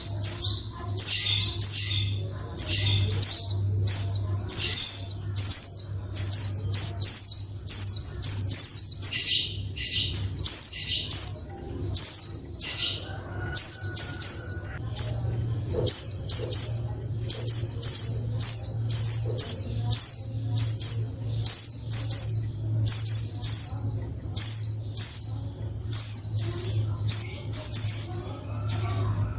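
Female white-eye (pleci) calling without let-up: clusters of short, high chirps, about two clusters a second. The call is the kind used to provoke male white-eyes into singing.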